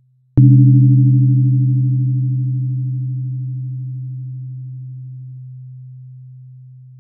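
128 Hz tuning fork struck once about half a second in, with a sharp strike and then a steady low hum that slowly fades. Before the strike the last tone is dying away faintly, and a brief higher ring over the hum fades out after a few seconds.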